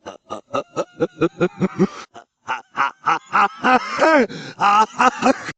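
A human voice played backwards: a rapid string of short pitched syllables, about five or six a second, with a brief break about two seconds in.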